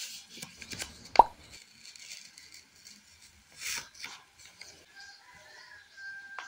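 Stationery being handled on a desk: a sharp tap about a second in as something is set down on the tabletop, then rustling of paper as a sticky note is laid on a notebook, with small handling noises throughout.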